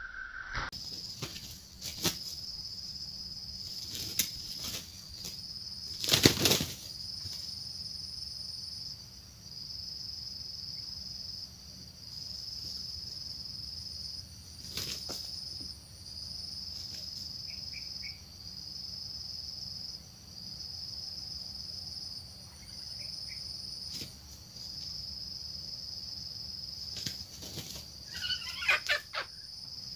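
Red junglefowl beating their wings in short bursts, the loudest about six seconds in and a flurry near the end mixed with a few short squawks. Under it runs a steady high insect drone that pulses in phrases of about two seconds.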